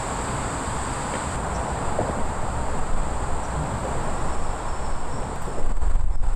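Insects calling in a steady, unbroken high drone over the low rumble of traffic on a nearby road, which grows louder near the end.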